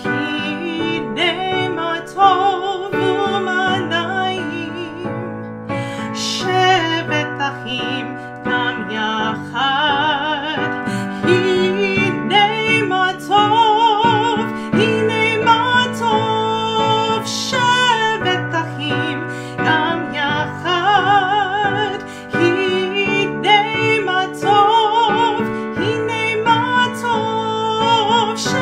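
A woman singing a melody with vibrato, held notes wavering, over piano accompaniment.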